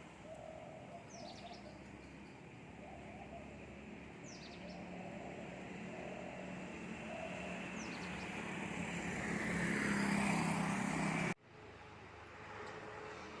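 A motor vehicle approaching and passing close by, its engine and road noise swelling to a peak and then cutting off suddenly near the end. A bird gives short, high, falling chirps every few seconds.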